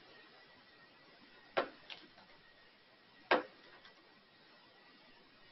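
About four separate, sharp clicks of a computer keyboard and mouse being used to fill in a form, with the two loudest about one and a half seconds apart.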